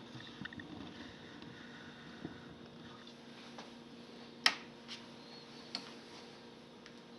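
Dual 601 turntable running with a steady hum, its mechanism giving a series of clicks and one loud sharp click about four and a half seconds in.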